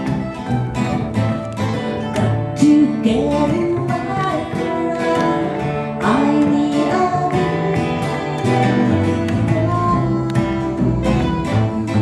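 Acoustic country band playing a tune: guitar and mandolin strummed and picked over a bass line.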